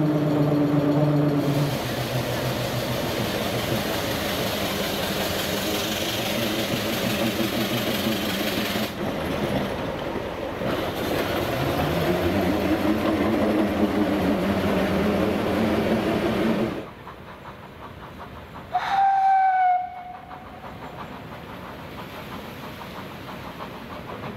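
A heavy vintage lorry's engine running as it drives by, its pitch rising and falling with the revs. Then a narrow-gauge steam locomotive sounds one short whistle blast, about a second long, over its quieter running.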